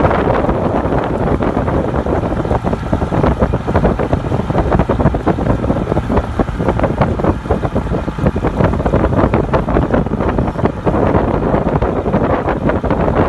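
Wind buffeting the microphone hard, a loud, constant rumble with rapid flutter, heard while filming from a moving boat.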